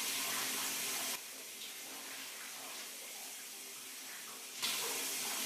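Water from an overhead rainfall shower head pouring and splashing in a steady hiss. It drops to a quieter level about a second in and comes back up sharply near the end.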